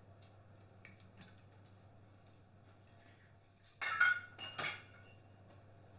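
Utensils clinking and scraping against dishes: two short clattering clinks about four seconds in, over a low steady hum.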